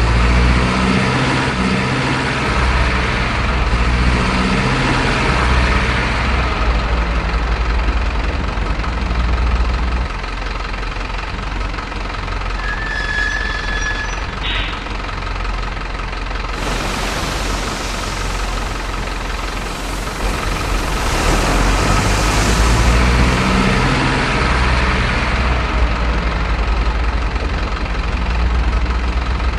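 Simulated heavy diesel truck engine sound, the idle and running note of a big truck rather than an electric RC motor. It changes character about ten seconds in. A stretch of loud, even hiss lasts several seconds past the middle.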